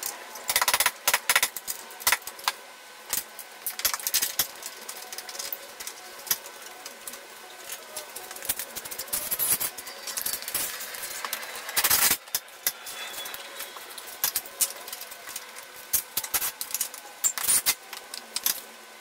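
Irregular metallic clanks and clinks of hand tools and steel parts being worked under a car's front suspension, with louder clusters about a second in, about twelve seconds in and near the end.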